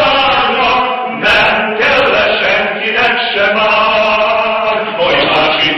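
Three men singing together unaccompanied, with held sung notes that change pitch every second or so.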